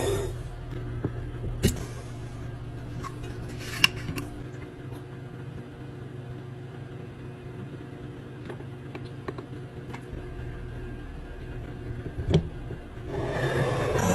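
Items being handled during a restock, with a few sharp clicks and knocks over a low steady hum. The hum fades out about eleven seconds in, and a swell of rustling noise comes near the end.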